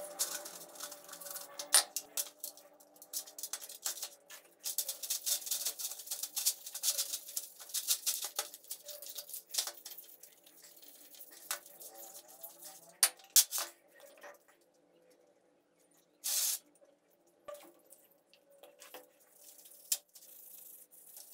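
A paintbrush scrubbing oily air compressor parts in a metal tray of cleaning liquid: runs of wet, scratchy brushing strokes, with a few sharp knocks of the cast parts against the tray, two of them close together about 13 seconds in.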